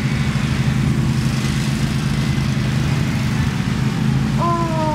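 Several riding lawn mower engines running steadily as the mowers drive past in a line. Near the end a held pitched wail starts and slides slowly downward.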